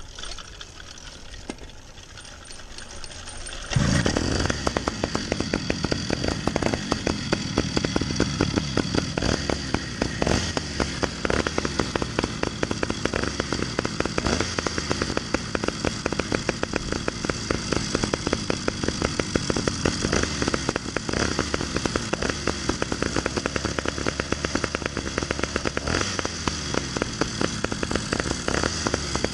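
Twin Phantom 85 two-stroke engines on a motorized bicycle: a quieter stretch, then about four seconds in the engines come in sharply and run steadily with a rapid firing beat as the bike is ridden.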